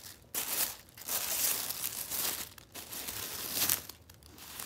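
Tissue paper rustling and crinkling as it is handled and unfolded, in three or four bursts with short pauses between them.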